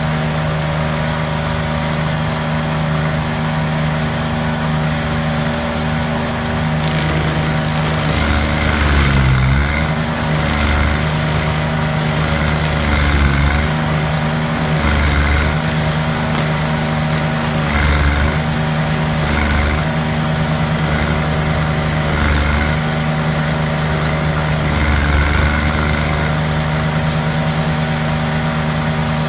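Gas engine of a self-propelled stump grinder running at high throttle while its cutting wheel grinds into a tree stump. From about eight seconds in, the engine note dips under load every two to three seconds as the wheel sweeps through the wood.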